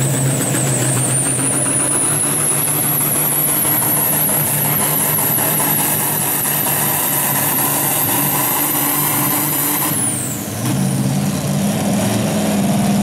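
International Harvester pulling tractor's diesel engine running flat out under full load as it drags the weight-transfer sled, with a high turbo whine that climbs over the first few seconds and holds. About ten seconds in the whine falls away sharply as the throttle comes off at the end of the pull, and the engine drops to a lower, steadier note.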